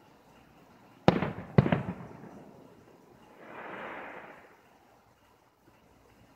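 Aerial firework shells bursting: two sharp bangs about half a second apart, each trailing off in an echo, then a softer rushing hiss for about a second midway through.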